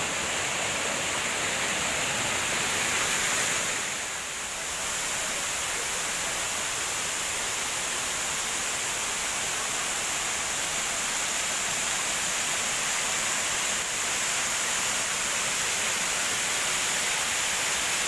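Benang Kelambu waterfall's water falling and rushing, a steady even hiss, with a brief dip in level about four seconds in.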